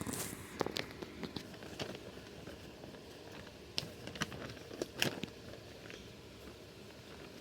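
Paper cutouts being handled: scattered light clicks and rustles, heaviest in the first couple of seconds and again around the middle.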